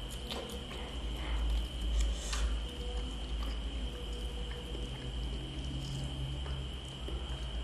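Close-miked chewing and wet mouth smacks of roast chicken being eaten, with soft squishing as fingers pull the juicy meat apart. Under it runs a steady low hum and a faint high whine.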